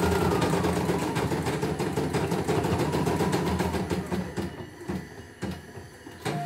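CNY E900 computerized embroidery machine stitching, its needle strokes a fast, steady rattle that slows to separate strokes about four seconds in.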